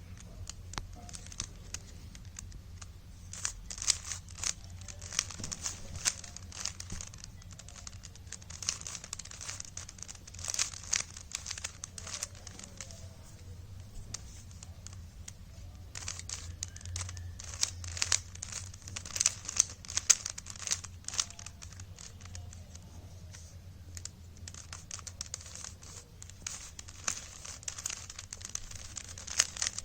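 3x3 Rubik's cube being turned by hand: its plastic layers click and rasp in quick runs of turns, with short pauses between runs, over a faint steady low hum.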